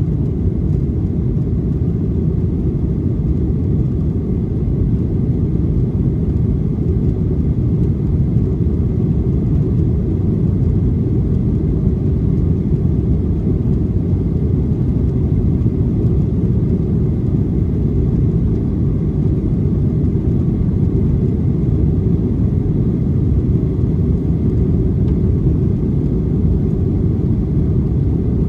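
Steady low rumble of a Boeing 737-900 jet airliner's CFM56-7B engines and airflow, heard inside the passenger cabin.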